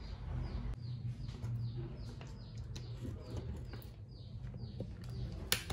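Birds chirping in the background, a string of short calls that each fall in pitch, over a low steady hum. A single sharp click near the end as the machine's power is switched on.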